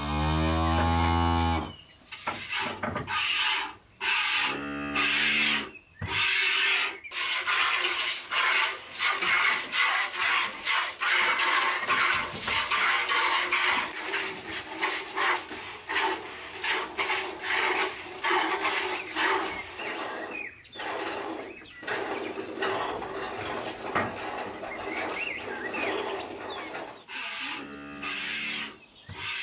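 A cow moos at the start, the loudest sound here, and again more briefly about five seconds in. Then comes a long, fast run of squirts as the cow is milked by hand into a plastic bucket. Another low moo comes near the end.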